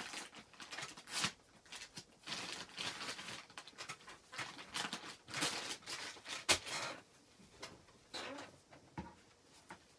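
Soft plastic wet-wipe pack crinkling and rustling as wipes are pulled from it and handled, in short irregular bursts, with one sharp click about six and a half seconds in.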